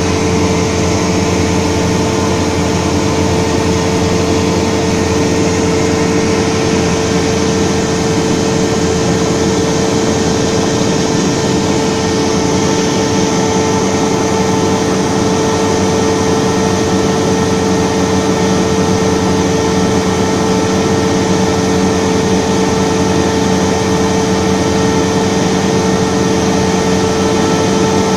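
Cessna 172D's six-cylinder Continental O-300 engine and propeller droning steadily, heard from inside the cabin on final approach, with a constant hum and airflow noise.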